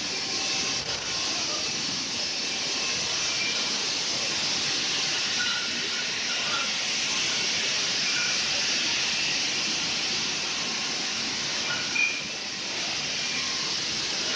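Wine bottling line machinery running: a steady hiss with short high pings scattered through it, and a brief louder knock about twelve seconds in.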